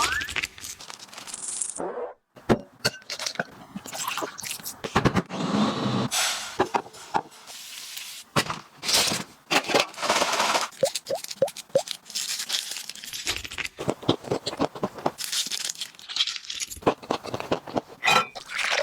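Cooking and food-handling sounds: a busy series of short knocks, scrapes and crackles from utensils and food, one after another.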